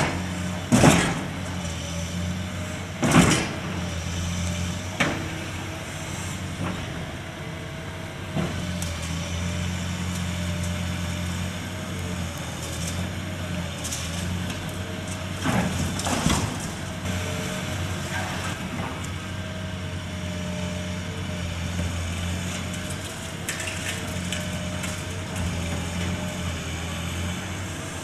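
Heavy demolition machinery running steadily, a low engine hum with a wavering whine over it, broken by loud crashes of breaking and falling building debris: three in the first five seconds and two more around the middle.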